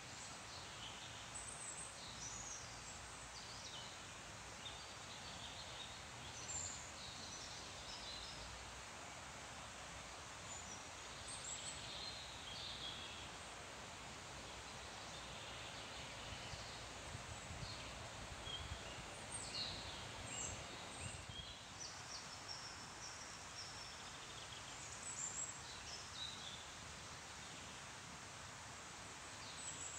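Birdsong over a steady rustling of trees: many small birds chirp and sing in short, high phrases, coming and going every second or two, above an even hiss of leaves.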